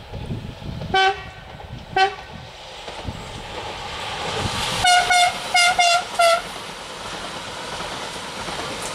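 Siemens Desiro electric multiple unit sounding its horn as it approaches: two short, lower toots about a second apart, then a quick run of five shorter, higher toots. Under them the train's running noise grows steadily louder as it draws near and passes.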